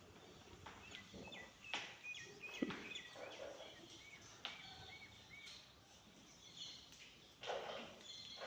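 Small birds chirping in quick, short, high notes, with scattered knocks and rustling. A louder burst of rustling comes near the end.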